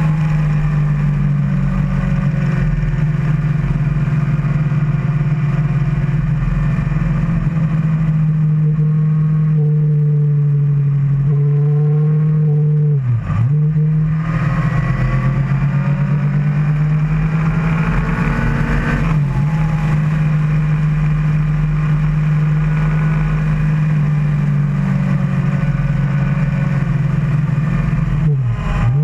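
Kawasaki ZX-10R's inline-four engine running hard at road speed, heard from a camera on the bike. Its note dips briefly at gear changes about halfway through, about two-thirds in and just before the end, and climbs in pitch under acceleration in between, over steady wind and road rumble.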